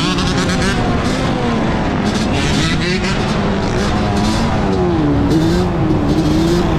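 Yamaha Banshee's two-stroke twin engine running while the quad is ridden, its pitch rising and falling as the throttle is worked.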